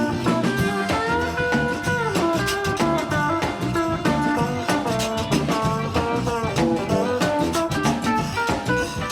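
Instrumental music with a steady beat and a moving melody line, in a jazz or swing style.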